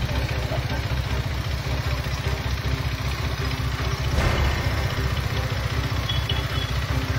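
An engine idling: a steady low rumble with a fast, even pulse.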